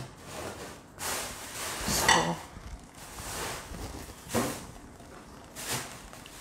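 Liquid pouring from a pot through a metal mesh strainer into a stainless steel bowl, strongest about two seconds in, followed by two short knocks of metal on metal as the strainer is handled.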